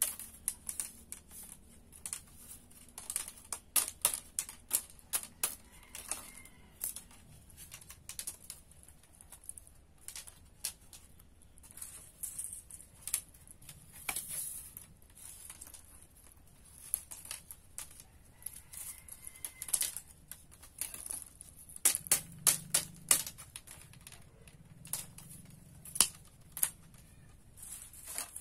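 Thin bamboo strips clicking and tapping against each other as they are woven by hand into a hexagonal weave. The clicks come irregularly, at times in quick runs.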